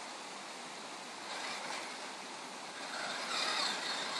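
A radio-controlled crawler truck's electric motor and gears running as it drives through a shallow rocky stream, louder in two short spurts, the second near the end, over a steady rush of running water.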